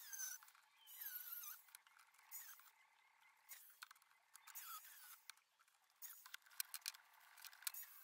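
Faint clinks and squeaks as a cast Nordic Gold axe is handled and clamped in a steel bench vise: scattered sharp metal clicks, most of them in the second half, with a few short squeaks near the start and the middle.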